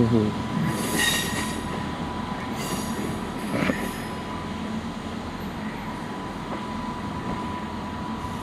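Southern Class 377 electric multiple unit pulling slowly into the platform, with a steady high-pitched tone over the rumble and two short hisses about one and three seconds in; the sound settles lower after about four seconds as the train draws up.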